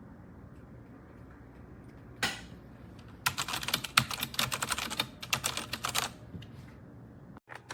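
Typing on a MageGee mechanical keyboard with clicky blue switches: a single keystroke about two seconds in, then a quick run of keystrokes lasting about three seconds.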